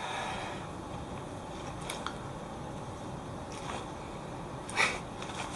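A foil-lined plastic snack bag crinkling a few times, faint and sparse, with a louder crinkle about five seconds in.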